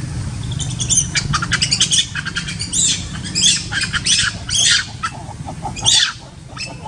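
Long-tailed macaque calling during mating: a quick run of short, high squeaks, then five shrill screeches that each fall in pitch.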